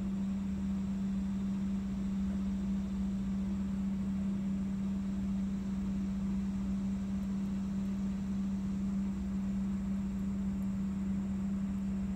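Steady mechanical hum with one constant low tone, over a faint rumble, unchanged throughout.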